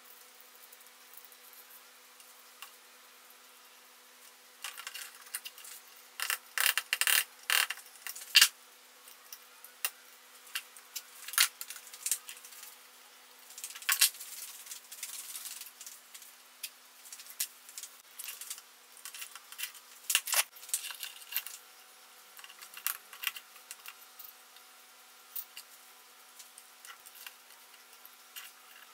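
Irregular clicks, taps and clatter of a cordless drill's motor and plastic housing being handled and worked on at a workbench, with a cluster of sharp knocks about six to eight seconds in and another about fourteen seconds in. A faint steady hum runs underneath.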